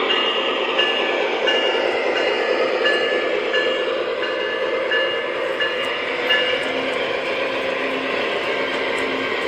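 Model Amtrak diesel train rolling past on its track, a steady rumble of wheels and motor, with a bell dinging about twice a second that stops about two-thirds of the way through.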